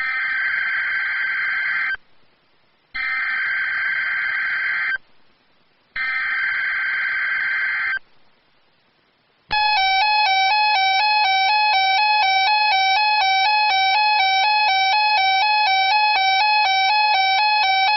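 Emergency Alert System SAME header on NOAA Weather Radio: three shrill two-second bursts of digital data tones, a second apart. After them comes a loud alert tone rapidly alternating between two pitches, about eight seconds long. It signals the start of a new alert message, here a tornado watch.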